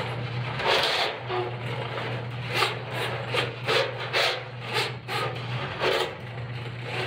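Alkamac TL50 Mini electric drain-cleaning machine running with a steady motor hum, its spinning flexible cable scraping and rasping irregularly as it is fed into the pipe.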